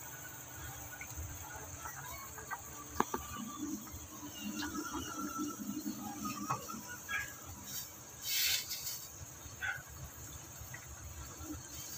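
A wooden spoon stirring boiling noodle soup in a stainless steel pot: faint scattered clicks and knocks, one sharper tap about three seconds in, and a short hiss a little past eight seconds.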